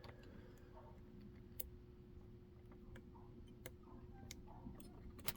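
Faint, sparse metallic clicks of a hook pick and tension wrench working the pins of a Kaba pin-tumbler cylinder fitted with security pins, a few sharp ticks with the loudest near the end, over a steady low hum.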